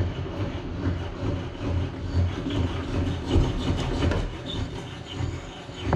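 The blade-height mechanism of a cheap benchtop table saw being wound down by hand, with an uneven rubbing and grinding and a pulsing low rumble as the blade lowers.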